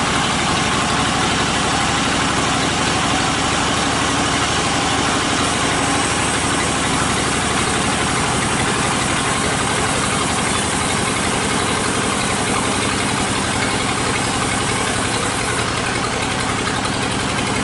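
Engine idling steadily, a constant even rumble with a fast regular pulse.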